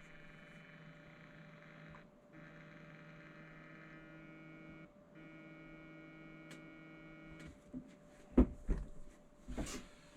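Steady electrical hum with several fixed tones, which cuts out briefly twice and stops about seven and a half seconds in. Near the end come a few sharp clicks and knocks of handling.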